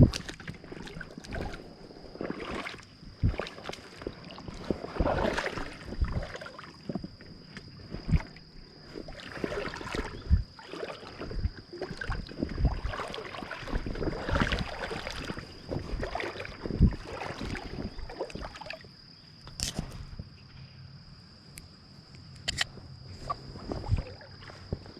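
Creek water splashing and sloshing in irregular bursts, with scattered knocks and clatters, under a steady faint high-pitched whine.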